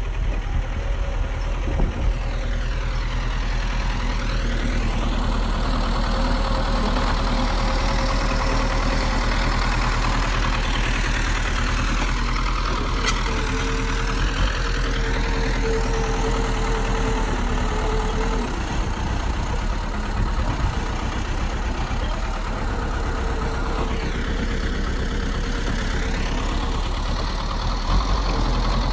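A bulldozer's heavy diesel engine running steadily.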